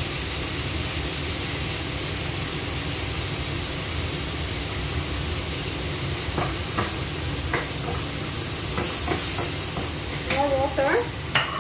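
Stir-fry sizzling in a wok over a steady rushing noise, with a spatula scraping and clicking against the pan from about six seconds in.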